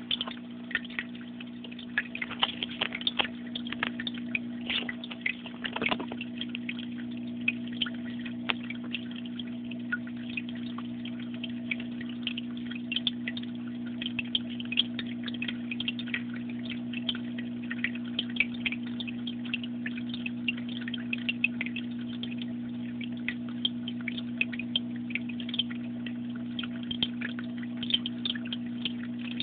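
A steady low electrical hum holding one constant pitch, with irregular light clicks and crackles over it, busiest in the first six seconds.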